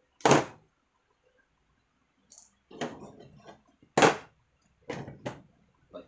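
Handling of a computer power supply and its wiring on a tabletop: about six short knocks and clatters, the loudest about a third of a second in and again about four seconds in.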